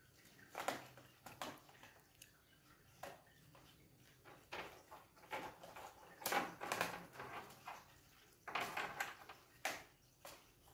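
A cat rummaging at a plastic packet of fish-food pellets: irregular short crinkles and scrapes, faint overall, the loudest about six and nine seconds in.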